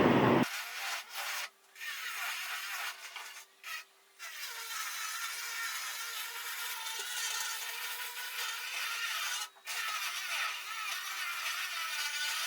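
Renovation work making a continuous rasping, sawing-like scrape, thin with no low end, that breaks off briefly a few times.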